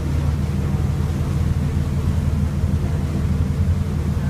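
Boat engine running steadily while under way, a constant low drone, with the rush of the wake and wind over it.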